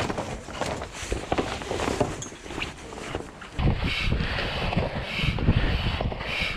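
Wind buffeting the microphone, with rustling and handling noise. The wind gets louder about halfway through.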